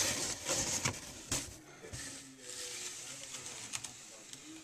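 Corrugated cardboard scraping and rustling as a hand moves inside a box with cardboard divider panels. Several sharp scrapes come in the first second and a half, then it goes fainter.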